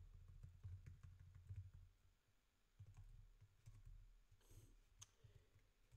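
Faint typing on a computer keyboard: a quick run of key clicks, with a short pause about two seconds in before the typing resumes.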